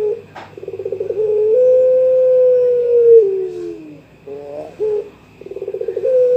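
Young puter pelung dove cooing to call a rival. Each phrase opens with a rapid stuttering trill and goes into a long held coo that drops in pitch at its end; the phrase comes twice, with a short broken coo between.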